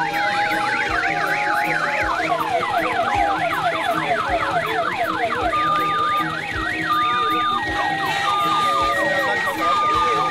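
Electronic vehicle siren sounding a fast yelp: rapid rising and falling sweeps, several a second. About halfway through, steady high and low tones start alternating with the sweeps.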